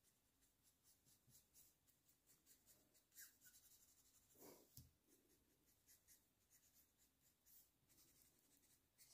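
Near silence, with faint, irregular scratches of a Copic alcohol marker stroking across paper as brown shades are blended.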